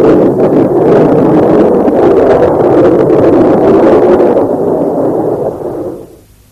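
Steady roar of a jet aircraft in flight, a dense rushing noise with no clear pitch, fading away over the last two seconds.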